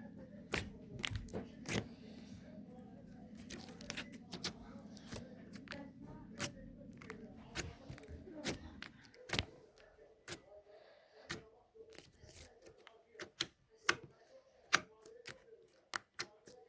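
Close-up hand-handling noises: irregular sharp clicks, crackles and taps, over a low hum that stops about nine seconds in.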